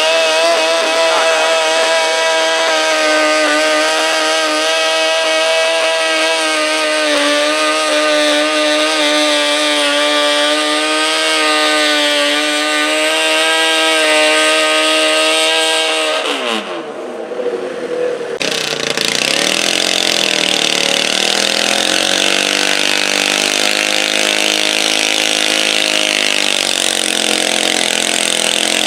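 Modified garden tractor engine running hard at high revs under load, dragging a stoneboat. About 16 seconds in the revs fall away sharply as the pull ends. Then a second modified garden tractor engine comes in at high revs, its pitch wavering as it pulls.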